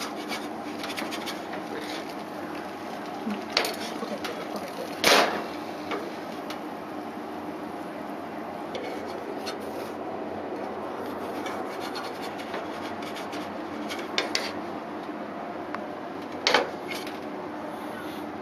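A spatula scraping and knocking against a cast-iron skillet as a pancake is turned over, over a steady hiss. There are a few sharp knocks, the loudest a short clatter about five seconds in.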